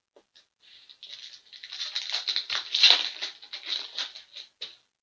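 Hockey trading cards and their pack wrapper being handled. It makes a dense run of rapid crinkling and rustling that starts about a second in and is loudest near the middle.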